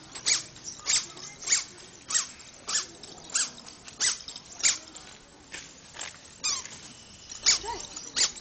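A toddler's squeaky sandals chirping with each step as she walks on concrete: short, high squeaks repeating evenly, about one every half second or so.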